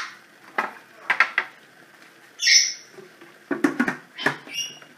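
Kitchen clatter: a few short knocks and clinks of utensils and cookware being handled. A brief scraping hiss comes about halfway through, and a short squeak near the end.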